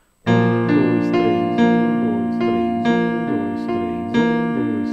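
Digital keyboard with a piano sound playing an arpeggiated accompaniment pattern over a B-flat chord, the left hand holding a low B-flat fifth while notes are struck in a steady repeating 1-2-3 figure, about two notes a second. It begins about a quarter-second in.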